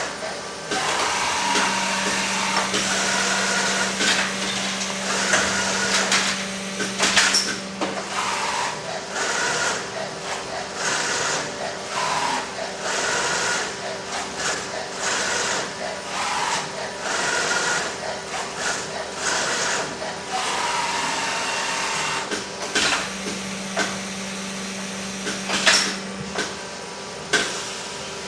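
A Filotec automatic load, turn and unload CNC scoring machine cycling printed circuit board panels. Motors whir and the machine gives off short noisy rushes, with a steady hum and a sharp clack in each cycle, the sequence repeating about twenty seconds apart.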